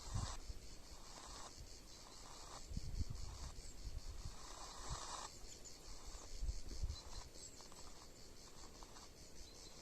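A long-wave radio receiver tuned to a radio beacon: the beacon's keyed Morse identifier switches on and off in short and long marks through the receiver's hiss, with low static crackles.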